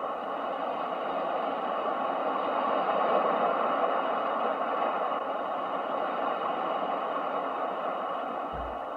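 Ocean surf: a steady rushing wash of waves that swells over the first few seconds and then slowly eases back.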